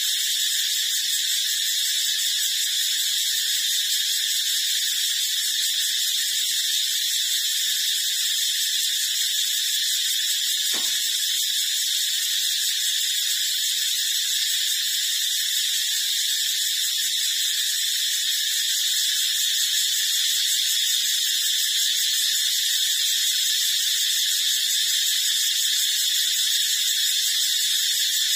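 A steady, shrill high-pitched drone that does not change throughout, with a single faint click about eleven seconds in.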